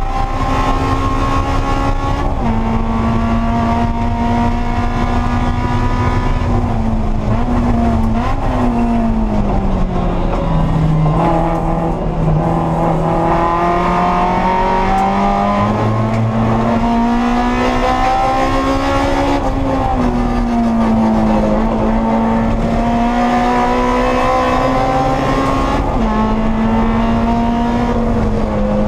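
Honda S2000 race car's four-cylinder engine at racing speed, heard from inside the cockpit. Its pitch drops as it slows for a corner about ten seconds in, then climbs again as it accelerates out, dipping briefly at upshifts.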